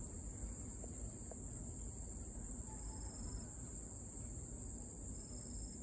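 Forest insects, such as crickets, keeping up a steady high-pitched trill, over a low, even rumble of background noise.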